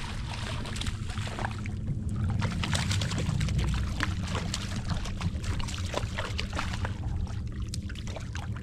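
A hooked fish thrashing and splashing at the water's surface beside a kayak, a rapid patter of splashes that is busiest in the middle, over a steady low rumble.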